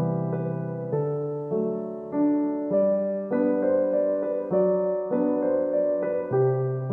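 Background piano music, slow notes played with a steady pulse.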